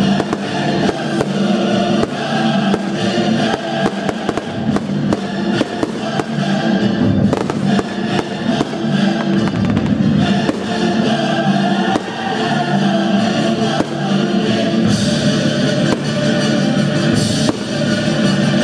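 Fireworks going off in a display: frequent bangs and crackles at uneven intervals, over loud music with a steady beat.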